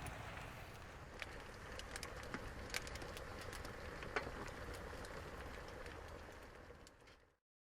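Wood campfire crackling, a steady hiss with scattered sharp pops, fading out near the end.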